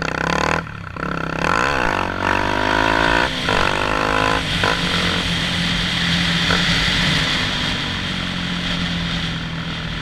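Honda XRE 300's single-cylinder four-stroke engine pulling the bike along, its revs dipping and climbing back twice in the first few seconds, then running fairly steadily at speed. Wind rushes over the helmet-mounted microphone.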